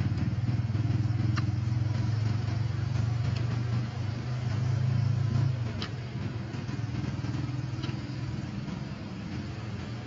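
A motor vehicle's engine running nearby: a steady low rumble that is loudest for the first five or so seconds and then eases off. A few faint, very short high squeaks come through on top.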